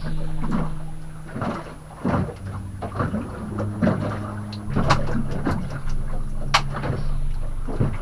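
Small fishing boat rocking in a passing boat's wake: water slapping at the hull and repeated knocks and clunks of the boat and its gear, over a steady low motor hum.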